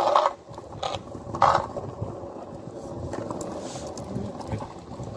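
Kick scooter rolling over pavement, its wheels and deck giving a steady rough rattle, with a few louder clatters in the first two seconds.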